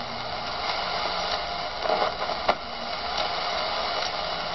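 Steady hiss and static from a homemade regenerative VHF-AM airband receiver tuned to the 118–138 MHz aircraft band, with no transmission coming through and a few faint clicks.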